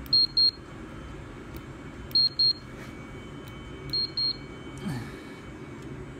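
Handheld infrared thermometer beeping: three high double beeps about two seconds apart, over the steady low hum of the running diesel parking heater.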